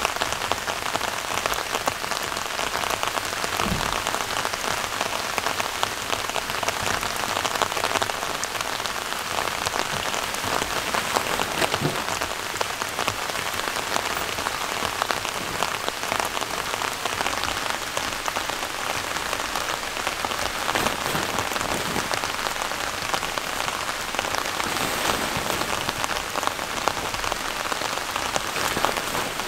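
Steady rain falling, a dense patter of drops on surfaces.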